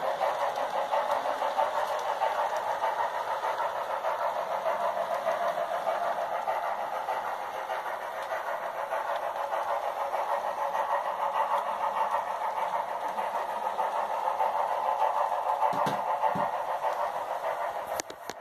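Sound decoder of the HO scale CP 2816 Hudson steam locomotive model playing steady, rapid steam-running sounds through its small speaker, mixed with model wheels rolling on the track. A few short clicks come near the end.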